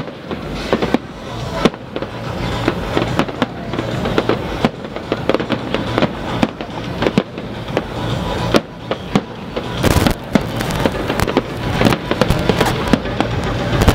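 Aerial fireworks display: a rapid, irregular barrage of shell bursts, bangs and crackles one after another, with an especially loud run of bangs about ten seconds in.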